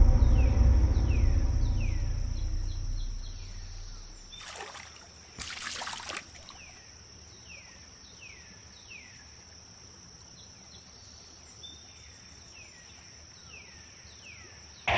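A low, deep musical drone fades out over the first few seconds. Water splashes briefly twice as he splashes river water on his face. Then there is quiet riverside ambience: a steady high insect drone and repeated short descending chirps.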